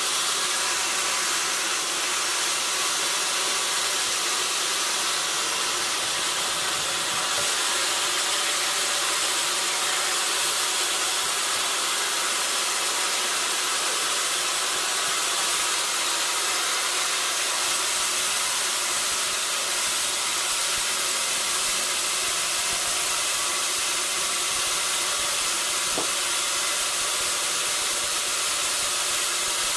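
Sawmill machinery running with a steady, even hiss that does not change.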